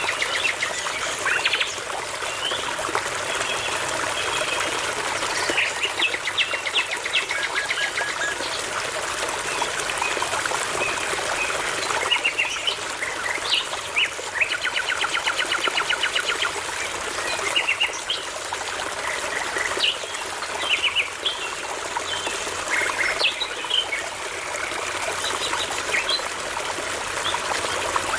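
Nightingales and other songbirds singing in rapid trills of repeated notes, whistles and chirps, over the steady rush of a babbling brook.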